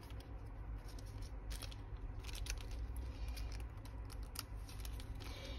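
Faint, scattered clicks and light rustles of handling, over a steady low hum.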